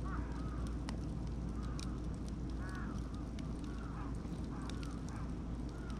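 Wood fire of beech and oak logs crackling, with sharp pops scattered throughout over a steady low rumble. Birds call repeatedly in short rising-and-falling notes in the background.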